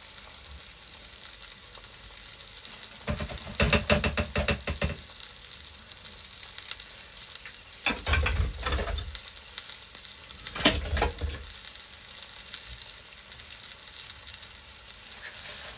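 Flour-dusted fish fillets frying in hot fat in a pan, with a steady high sizzle. Three bursts of clattering break in, about three, eight and ten and a half seconds in.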